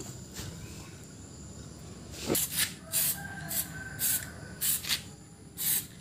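Aerosol spray-paint can pressed in short bursts, about seven quick hissing sprays at roughly two a second, starting a little over two seconds in.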